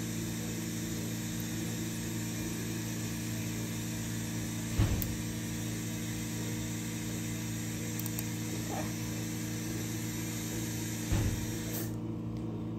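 A steady mechanical hum with a hiss over it, broken by two brief knocks about five and eleven seconds in; the hiss cuts off near the end.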